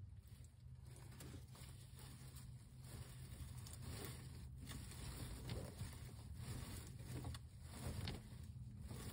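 Broody Royal Palm turkey hen shuffling down onto her clutch in a pine-straw nest: soft, irregular rustling of straw and feathers as she settles to incubate, over a steady low hum.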